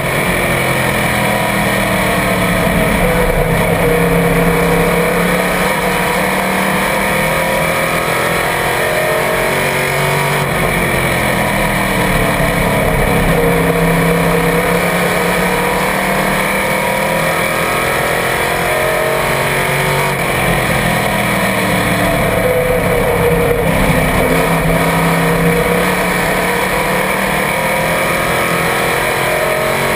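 Small-block V8 of a supermodified race car heard on board at racing speed, its pitch falling and climbing again about every ten seconds as the driver lifts for each turn and gets back on the throttle down the straight.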